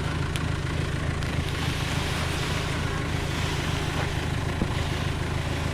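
Farm tractor engine running steadily at a constant speed.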